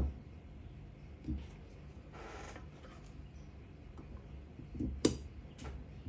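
Small clicks and taps of carburetor parts being handled and fitted during reassembly, with a brief rustle a couple of seconds in; the sharpest click comes about five seconds in.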